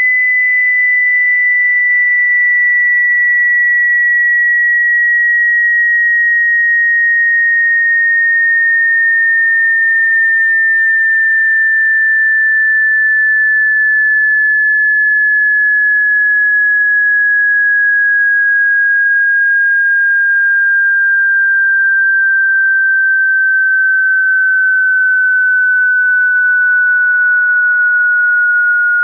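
Electronically generated pure sine-wave test tone, one steady whistle-like pitch gliding slowly and evenly downward throughout. It is a frequency sweep of the kind used to test or break in loudspeakers.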